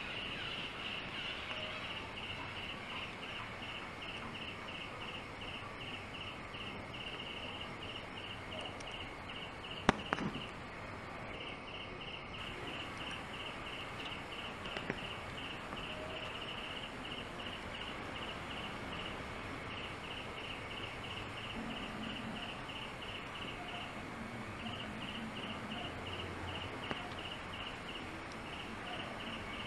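An insect chirping in a fast, even pulse, about four or five chirps a second at one high pitch, over a steady background hiss. A single sharp click about ten seconds in is the loudest sound, and the chirping pauses briefly after it and again later.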